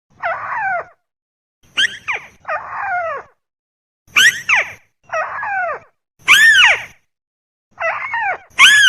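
Lure recording of tikusan (rail) calls: loud, squealing calls that slide down in pitch, each under a second long, repeated with short gaps and sometimes in quick pairs.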